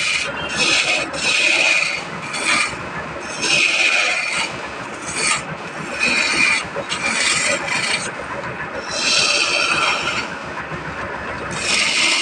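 A hand tool rubbing or scraping over wood in repeated strokes, each a hissing scrape of about half a second to a second, coming irregularly about once a second.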